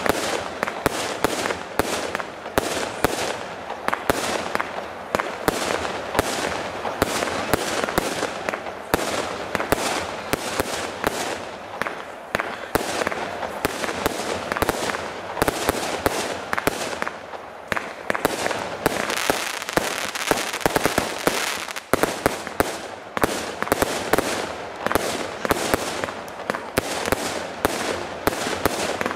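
Aerial fireworks going off in a rapid, continuous barrage of sharp bangs and crackles.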